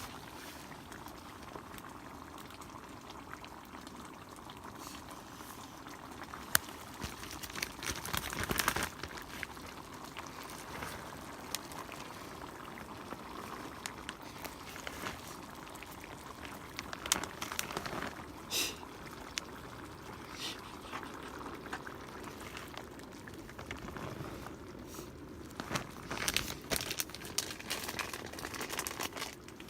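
Food bubbling in a pot as it cooks, a steady simmering hiss, with scattered clicks and clinks. Louder clattering comes about eight seconds in and again near the end.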